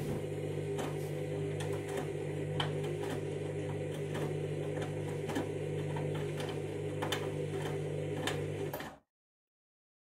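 Candy front-loading washing machine turning its drum: a steady motor hum with soft clicks and knocks from the wet laundry tumbling. The sound cuts off abruptly about nine seconds in.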